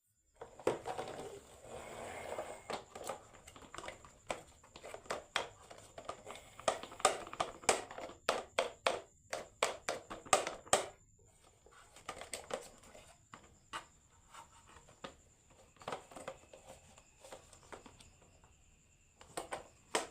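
Marbles rolling down a wooden marble run, with rapid clacks and knocks on the wooden tracks and pieces. The clatter is densest for the first ten seconds or so, then thins to scattered knocks.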